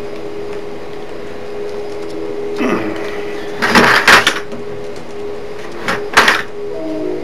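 Bundled copper wire strands rustling and scraping as they are twisted together by hand and with needle-nose pliers, in three short bursts with the loudest about four seconds in. A steady low hum runs underneath.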